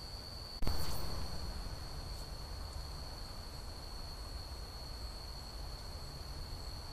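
Steady high-pitched insect chorus of a night woodland, with a single sharp click a little over half a second in.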